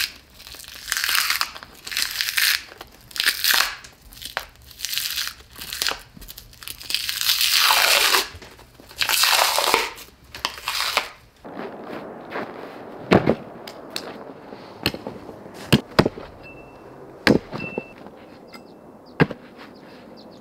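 Crunching, crackling frost and ice as a frozen, frost-covered rack of beef ribs is worked and pulled apart by hand, in repeated rasping scrapes. About eleven seconds in it turns quieter, with scattered sharp clicks and crunches and a few short high beeps.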